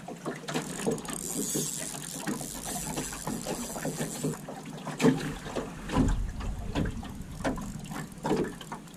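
Irregular knocks and clatter in an aluminum boat while a fish is played on a spinning rod and reel, with the reel being cranked; a low rumble of wind on the microphone comes about six seconds in.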